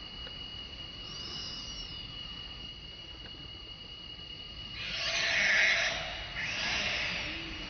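Long-tailed macaque screaming while being attacked by another monkey: two loud, harsh screams, about five and six and a half seconds in, the first the louder. A faint high call comes about a second in.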